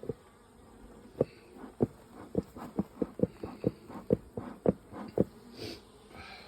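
Bee smoker's bellows being pumped: about a dozen short puffing thumps in quick succession, two to three a second, over the faint buzz of honey bees.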